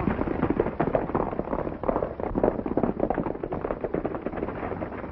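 Hoofbeats of several horses galloping on a dirt street, a rapid, jumbled run of thuds.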